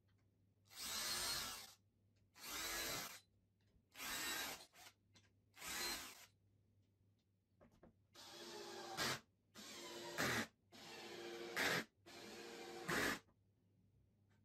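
Cordless drill-driver driving screws through an aluminium T-track into a wooden strip, in eight separate runs: four short ones, then four longer ones that build in loudness and each end in a sharp peak as the screw goes home.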